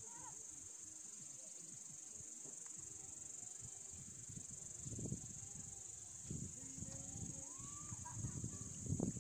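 Steady high-pitched chorus of insects, with irregular low rumbles that swell about five seconds in and again near the end.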